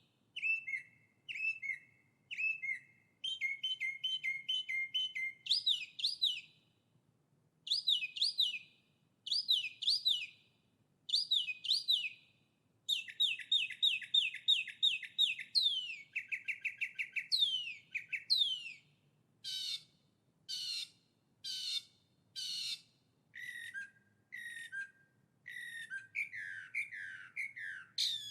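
A songbird singing a long run of varied phrases: quick repeated chirps and trills and downward-sweeping whistles, with short pauses between phrases.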